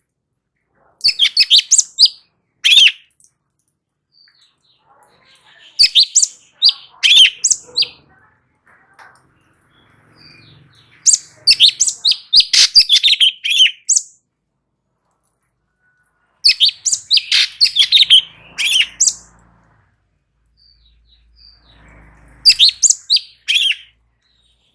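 Cucak cungkok singing in loud bursts of rapid, high chirping notes. There are five phrases of one to three seconds each, separated by short pauses.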